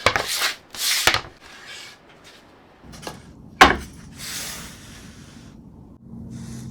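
Workshop handling of wooden and acrylic parts: a few rubbing, scraping strokes at the start, a sharp knock about three and a half seconds in, then a short low hum near the end.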